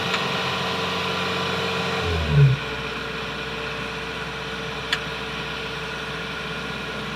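Kubota DC70 Plus combine harvester's diesel engine running steadily as the machine drives up onto a truck. About two seconds in there is a loud low thud with a falling pitch, and the engine note is lower and steadier after it.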